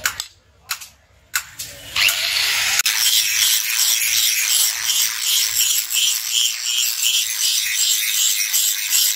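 A handheld angle grinder grinds the edge of a forged steel billhook blade, a harsh steady grinding that starts about two seconds in and pulses regularly about twice a second as the disc is worked along the edge. Before it start there are a few short, sharp clicks.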